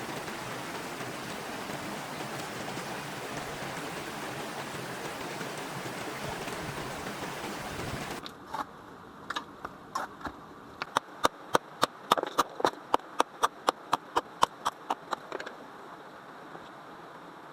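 Steady rushing noise like a mountain stream. After an abrupt cut, a run of sharp knocks starts irregularly and then comes at about three a second for a few seconds before stopping.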